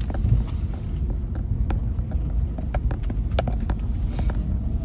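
Car driving: a steady low road rumble heard from inside the cabin, with scattered sharp clicks.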